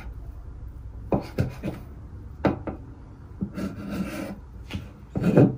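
Kitchen knife knocking and scraping on a wooden cutting board: several sharp knocks, with a stretch of rasping scrape in the middle.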